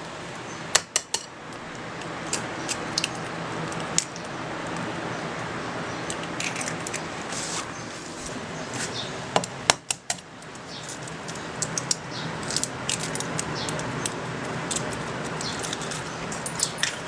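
Metal utensils and dishes clinking and clattering over a steady hiss, with scattered sharp clicks and two louder clusters of clatters, about a second in and again near the middle.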